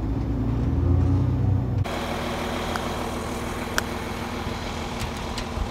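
Heavy vehicle engine running, deep and loudest for the first two seconds, then an abrupt change to a steadier engine drone under a wider hiss, with a couple of faint clicks.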